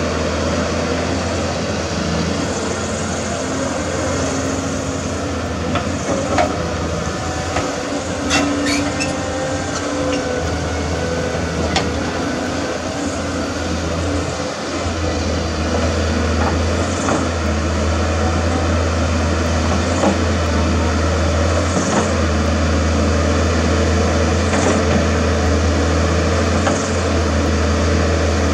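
CAT 320D excavator's C6.4 diesel engine running steadily under load as the machine digs, with a few sharp knocks in the first half from the bucket and tracks working the ground. The engine is a little louder in the second half.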